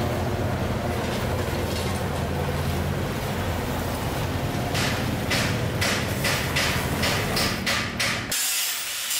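A steady low drone with rhythmic rasping strokes that start about halfway through and quicken, then a sudden cut near the end to the hissing rasp of wood being sawn in a workshop.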